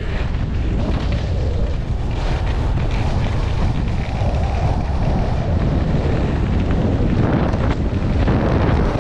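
Wind buffeting the microphone of a camera moving fast down a ski slope: a steady, heavy rumble with rushing noise.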